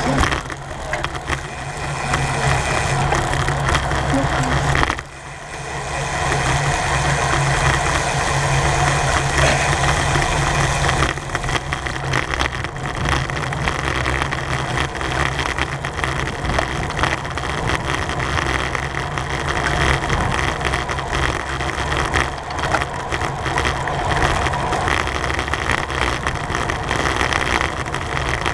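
Steady rush of wind over the microphone of a camera on a racing bicycle at speed, mixed with a constant low hum from the tyres and drivetrain. It dips briefly about five seconds in.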